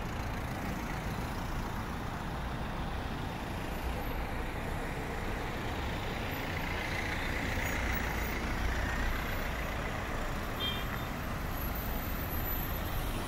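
Slow queue of traffic: car engines running as the vehicles crawl past, with steady road noise.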